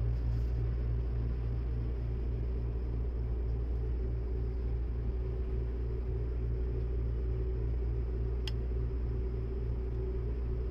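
Steady low rumble and hum inside a Seibu Laview limited-express train carriage, the low part throbbing a few times a second. A single sharp click comes about eight and a half seconds in, as the seat's fold-out tray table is handled.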